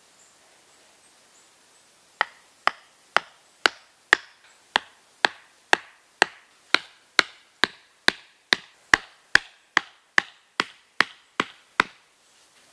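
Hatchet striking a wooden post in a steady series of sharp blows, about two a second and around twenty in all, starting about two seconds in.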